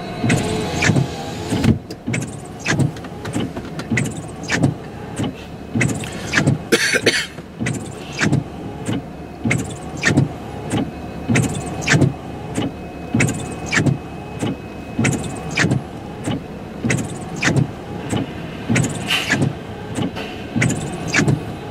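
Freight train cars rolling past, their wheels clacking rhythmically over the rail joints and grade crossing, about two knocks a second in close pairs, heard from inside a car.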